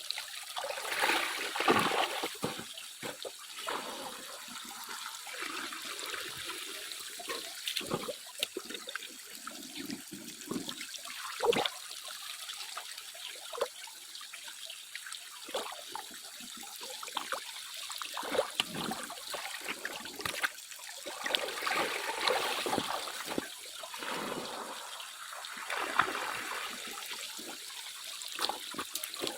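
Water sloshing and splashing in uneven swells, with scattered sharp clicks.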